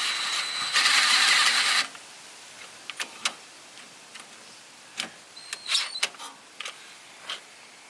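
A rushing, hiss-like noise for nearly two seconds, then a handful of light clicks and metal clinks from hand tools and suspension parts being handled.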